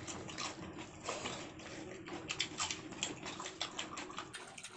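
Eating sounds from people eating fish with rice and gravy: many quick, irregular soft clicks and smacks.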